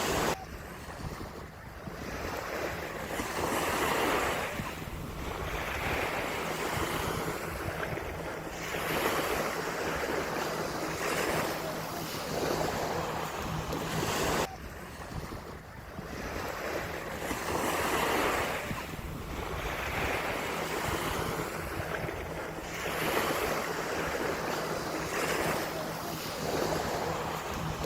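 Ocean surf breaking and washing up a beach, swelling and easing every two to three seconds, with wind rumbling on the microphone. The sound breaks off abruptly and resumes about halfway through.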